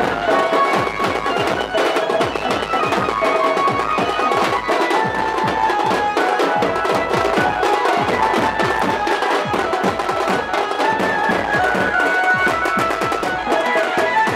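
Teenmaar band music: fast, dense drumming on big drums with a reedy wind instrument playing a melody over it.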